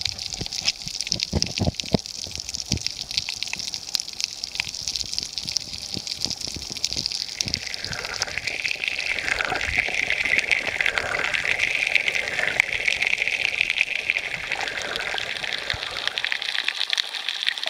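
Water rushing and splashing with a steady hiss and many small clicks; from about halfway through, a stronger wash that swells and fades several times.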